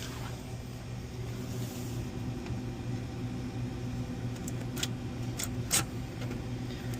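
Steady electrical hum of a powered commercial freezer running, with a few sharp clicks from tool work on the unit about five seconds in.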